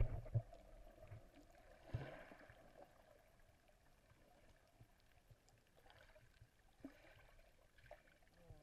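Muffled water sound heard underwater, as a snorkeler moves through the water: a low thump at the start and another about two seconds in, then faint water movement with small scattered ticks.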